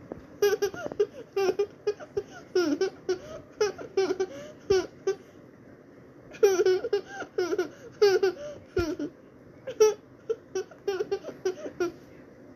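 A young child laughing in many short bursts of giggles, with a pause of about a second near the middle.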